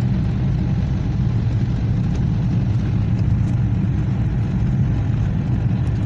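Steady low rumble of road vehicle noise, unchanging throughout.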